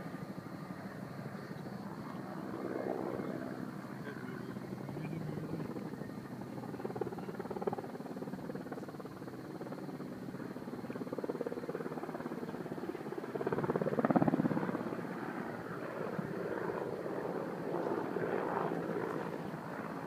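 Firefighting helicopter flying over a forest fire, its rotor and engine a steady drone that swells louder about two-thirds of the way through.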